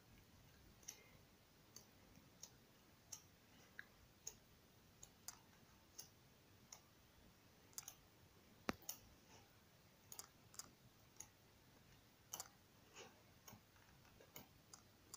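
Pages of a paperback colouring book being flipped over one after another, each turn a faint short flick, irregularly about one or two a second, with one sharper click a little past halfway.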